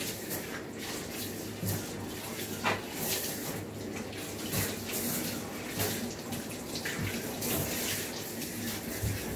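Water spraying steadily from a hand-held sprayer hose into a dog's long curly coat and splashing into a grooming tub, as the coat is wetted down for a bath. A few sharper splashes stand out now and then.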